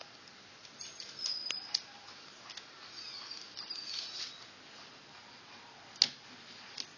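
Faint handling noise: light scratching and rubbing with a few sharp clicks, the loudest about six seconds in, as a hand moves a plastic puzzle cube about.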